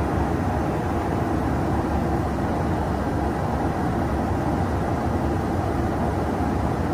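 Steady engine and rushing-air noise inside a KC-135 Stratotanker's boom pod in flight, even throughout and heaviest in the low end.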